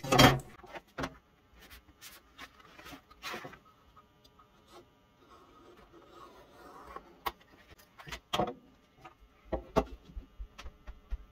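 Scattered sharp knocks and clicks of a metal square and utility knife handled on a wooden workbench, and a soft scrape about halfway through, as a PVC vinyl sheet is scored and bent. The loudest knock comes right at the start.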